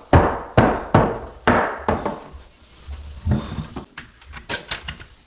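Hammer blows on wood or wall framing: about two sharp knocks a second, each with a short ringing tail, then fainter, irregular taps after about three seconds.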